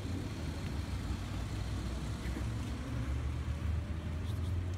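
Steady low rumble of a motor vehicle and street traffic, with a couple of faint clicks near the end.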